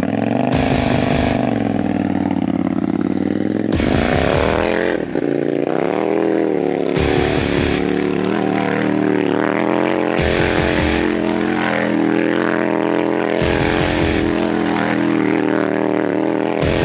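1000cc KTM motorcycle engine in an all-wheel-drive off-road go-kart, revved hard up and down again and again as the kart spins donuts on loose dirt.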